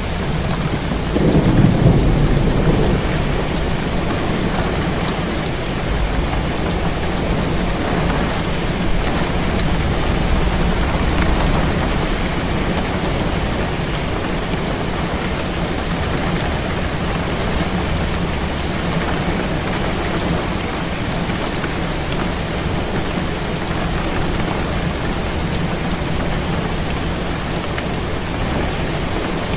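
Heavy rain falling steadily on a window, with a low rumble of thunder swelling and fading about one to three seconds in.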